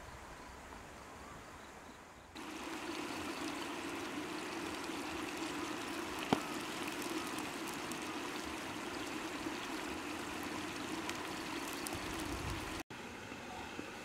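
Peeled boiled eggs simmering in sauce in a wok: a steady bubbling hiss that starts abruptly about two seconds in, with one sharp pop partway through.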